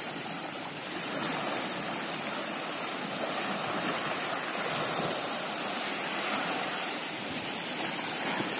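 Steady rush of small waves lapping in the shallows at the water's edge, even throughout with no distinct splashes.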